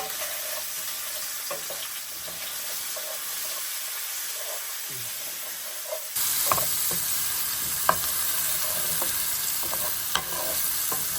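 Diced sweet potato and leek sizzling in hot oil in a frying pan while being stirred, with a few sharp knocks of the utensil against the pan. The sizzle gets suddenly louder about six seconds in.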